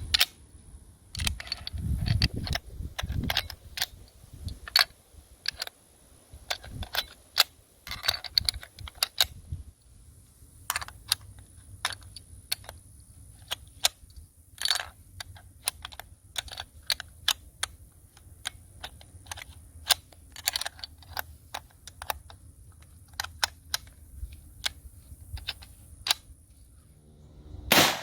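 Irregular metallic clicks and clacks of .30-06 cartridges being pressed one at a time into a Johnson Model 1941 rifle's rotary magazine, with heavier handling noise in the first few seconds.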